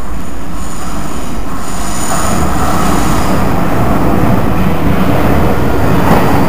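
London Underground surface-stock train approaching through the tunnel. Its rumble grows steadily louder, with a faint high wheel squeal a second or two in.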